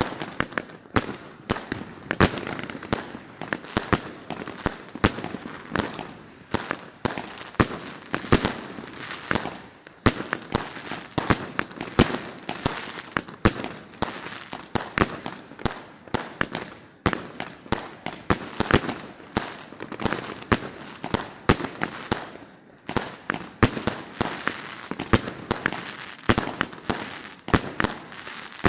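Aerial fireworks bursting in a rapid, unbroken string of bangs and crackles, several a second, some reports louder than others.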